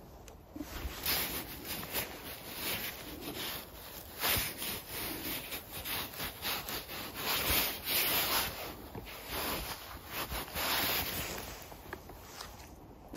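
Irregular rustling and rubbing of gloved hands working through moss while picking funnel chanterelles.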